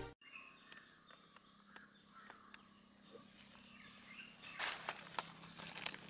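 Faint outdoor natural ambience: a steady high-pitched insect drone with scattered short bird chirps, and a few louder sharp clicks in the last second and a half.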